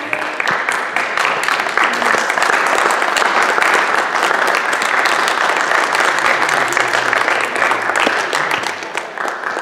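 Applause from a theatre audience and the cast on stage: many people clapping densely and steadily, thinning out near the end.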